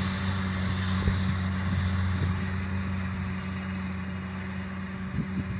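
Tractor engine and a New Holland S109 seven-disc mower running steadily while cutting alfalfa, a constant low hum with a steady hiss above it.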